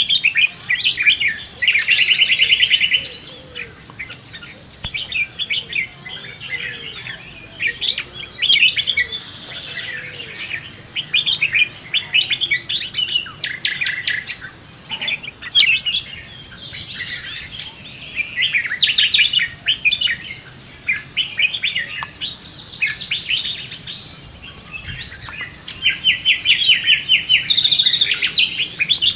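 Several birds singing and chirping together in a morning chorus, with rapid repeated trills and short chirps overlapping; the loudest trill runs come near the start and near the end.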